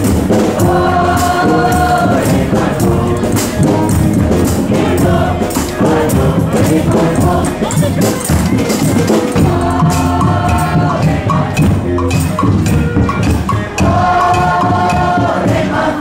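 Street band playing: bass drum and samba-style drums keep a busy, driving beat, with melody phrases from horns or voices coming in over it about a second in and again in the second half.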